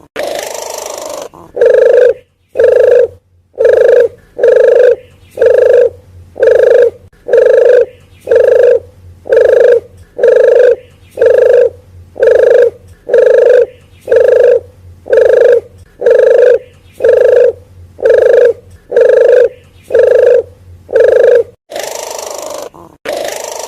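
Lure-call recording of a wild puter dove (puter geni / puter hutan) cooing: short, low coos repeated evenly, about one and a half a second. Near the end comes a longer hissy, rasping note.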